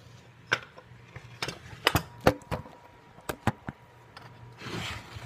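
A run of sharp knocks and taps as a phone camera is handled and repositioned on a kitchen counter, then a short rustle near the end.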